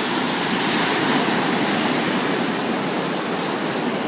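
Ocean surf washing on the shore, a steady rush of waves.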